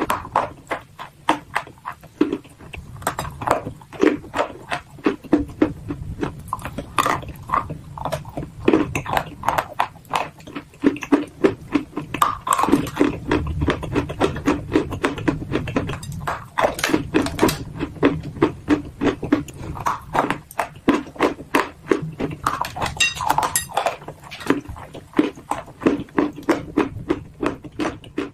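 Dry clay being bitten and chewed close to the microphone: a steady run of crisp, gritty crunches, about three a second.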